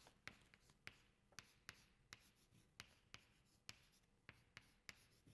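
Chalk tapping and scraping on a blackboard as an equation is written out: a string of faint, sharp, unevenly spaced taps, about two or three a second.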